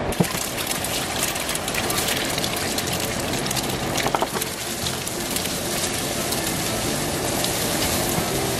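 Eggs frying in hot cooking oil in a nonstick frying pan: a steady sizzle with fine crackling. A wooden spatula knocks against the pan once shortly after the start and again about four seconds in, as the eggs are scrambled.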